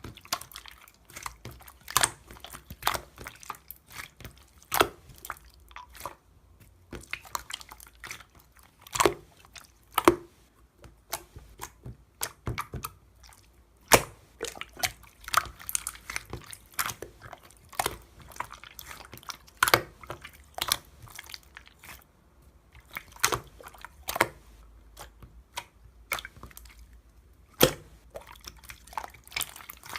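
Clear slime being squished and pressed by hand, making irregular sticky clicks and pops.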